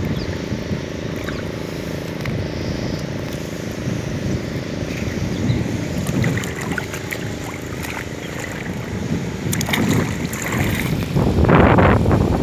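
Water sloshing around a man wading waist-deep in a muddy lake, with wind on the microphone, and a louder rush of splashing about a second before the end as he handles the cast net in the water.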